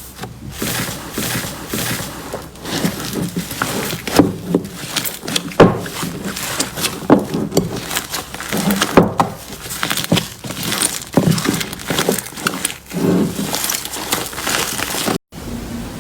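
Slime being squeezed and pressed by hand, giving an irregular run of sticky clicks and pops with soft low squelches. It cuts off abruptly about a second before the end, and a steadier crackling begins.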